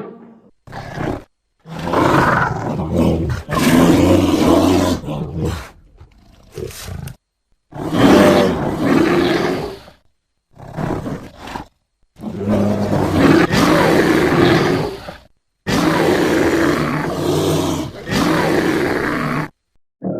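Sound-effect roars and growls of a cave bear, an extinct bear, so they are designed or borrowed bear-like calls. About eight deep, rough roars come one after another with short silences between them, and the longer ones last several seconds.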